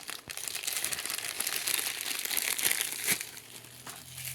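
Plastic packaging crinkling and rustling as it is handled and opened to get a vinyl figure out, with a sharper click about three seconds in.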